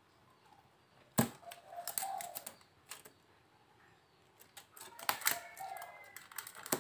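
Irregular sharp clicks and taps from a rattan birdcage being handled. The loudest snap comes a little over a second in, and there are clusters of lighter clicks around two seconds and around five seconds.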